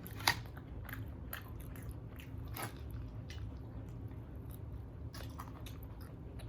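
Close-up eating sounds of chicken wings being bitten and chewed: scattered wet smacks and small crunches, the sharpest bite about a third of a second in, over a steady low hum.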